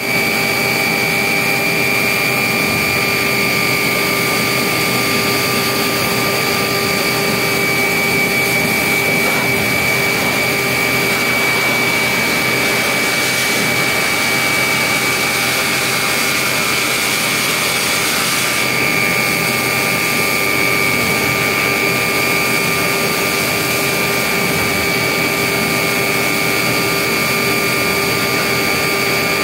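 Shotcrete being sprayed through a robotic arm's nozzle with compressed air: a loud, steady hiss with a high whistling tone held throughout.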